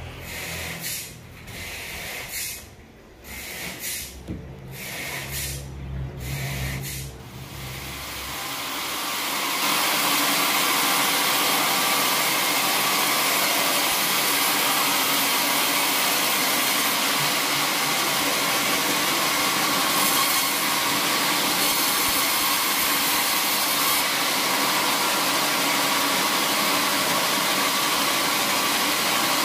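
For the first several seconds, wooden planks are shifted and scraped, with irregular knocks and rubbing over a low hum. About eight seconds in, a band sawmill's blade comes into the wood and cuts a teak log with a loud, steady rushing noise that continues unbroken.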